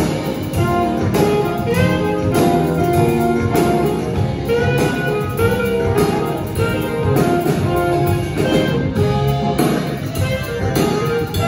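Live band playing an instrumental jazz groove: electric bass, a drum kit keeping a steady beat, keyboards and electric guitar, with a saxophone carrying the melody.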